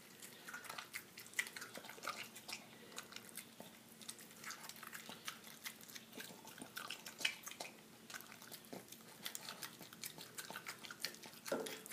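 Boston Terrier eating soft mashed fish meal from a stainless steel bowl: faint, irregular wet chewing and licking with many small clicks.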